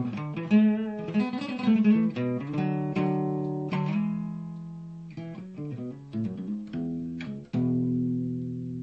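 Guitar played by hand: picked notes and strummed chords, ending on a chord struck near the end that rings out and slowly fades.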